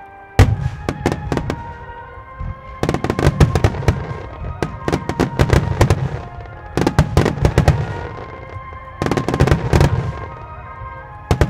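Starmine fireworks: aerial shells bursting in rapid volleys of sharp cracks and deep booms, coming in several clusters a few seconds long with short lulls between, over music playing alongside the display.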